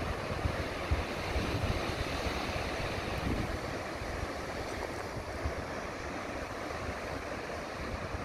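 Ocean surf washing against the shore below a cliff, with wind buffeting the microphone in uneven low gusts.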